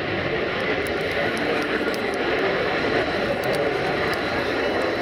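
North American F-100 Super Sabre's Pratt & Whitney J57 turbojet running in afterburner as the jet climbs away, a steady, loud jet noise.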